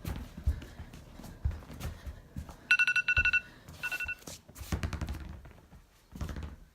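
A high electronic ringing tone sounds twice near the middle, a longer ring then a short one, over irregular low knocks and thumps.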